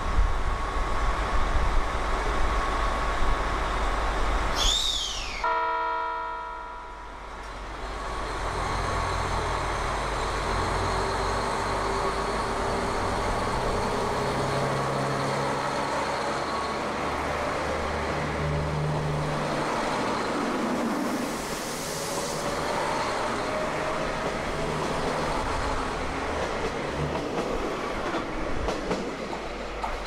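KiHa 261 series diesel railcar train running at the platform, giving one short horn blast about five seconds in, then its diesel engines pulling away as the cars roll past.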